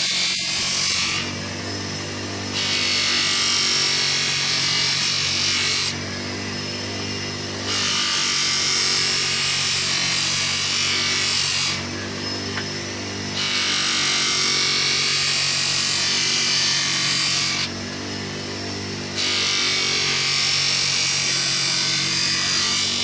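A power tool runs steadily while a rusty metal part is pressed against its polishing wheel in spells of a few seconds, giving a loud rubbing hiss. The hiss drops away briefly between passes while the motor keeps running.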